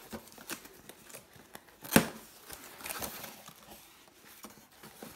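Cardboard mailing box being opened by hand: flaps pulled apart with scraping, rustling cardboard and a sharp snap about two seconds in.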